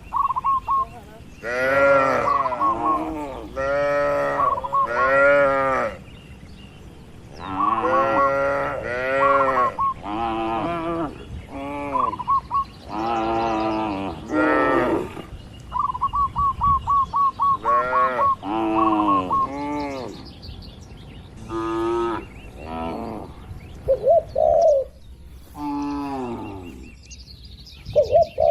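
Many cattle mooing one after another, a long succession of drawn-out calls of differing pitch with short gaps between them, with a few runs of rapid high chirps in the pauses.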